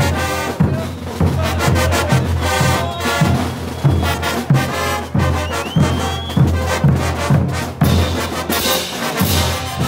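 Bolivian street brass band playing a morenada: trumpets, trombones and large bell-front horns over bass drums, snare drums and clash cymbals, with a steady marching beat.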